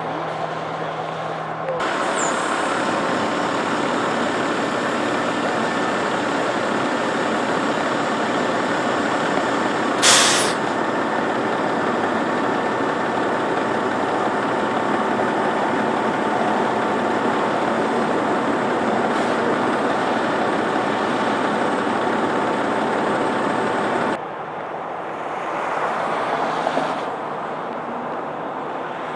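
A fire engine's diesel engine runs loudly and steadily, then drops out abruptly near the end. About a third of the way in there is a short, sharp hiss of air brake.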